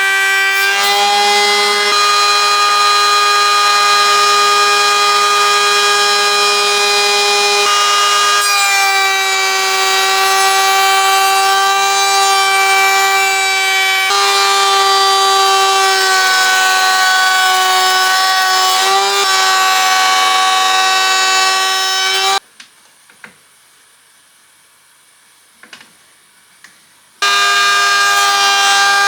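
Bandsaw running with a loud, steady high whine while cutting wood, its pitch shifting slightly at a few abrupt joins. About 22 seconds in it cuts off suddenly for a few seconds of quiet with a few light knocks, then comes back at full level.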